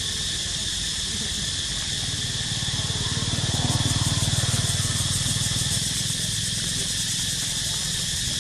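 Steady high-pitched drone of insects in the surrounding trees, with a faint fast pulsing in its upper part. A low rumble swells about three seconds in and fades again a few seconds later.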